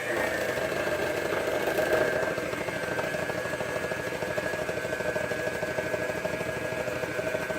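Electric hand mixer running steadily in cookie dough, a motor whine whose pitch sinks slightly over the first few seconds as the dough thickens.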